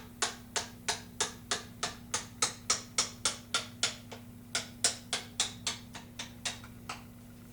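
Hammer tapping a wooden dowel to drive a lead slug down a Mauser rifle barrel: sharp, regular knocks about three a second, a brief pause just after four seconds in, then more taps that get quieter and stop near the end as the slug pushes through the bore.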